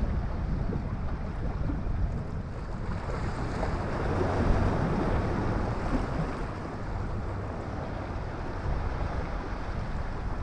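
Wind buffeting the microphone over small waves washing against a rock seawall, a steady rough rumble that swells louder around four to six seconds in.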